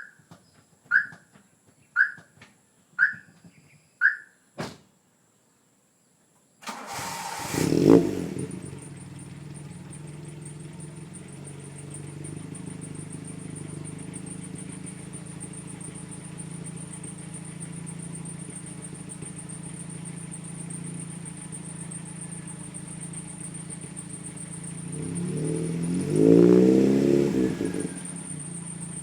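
Five short beeps about a second apart, then a Toyota Corolla's engine cranks and starts through an FGK Fujitsubo Legalis chambered muffler, flaring briefly and settling into a steady idle. Near the end it is revved once, rising and falling back to idle.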